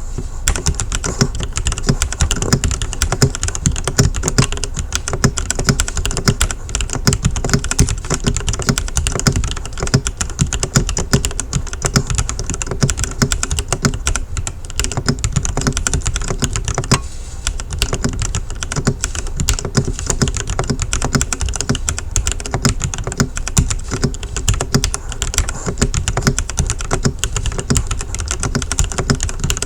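Steady, fast typing on a Lemokey X4 75% wired mechanical keyboard: a rapid run of keystroke clicks with a short pause about halfway through. The keystrokes are pretty quiet.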